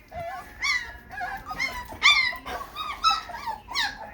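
A litter of three-week-old white German shepherd puppies whining and squealing, many short high-pitched cries that rise and fall, a few each second and overlapping. The puppies are crying to nurse.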